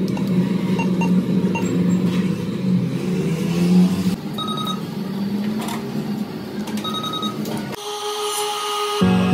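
NCR cash machine beeping over a steady low hum: a few short key beeps about a second in as the PIN is entered, then two brief, clear beeps a couple of seconds apart. Near the end this gives way to street noise.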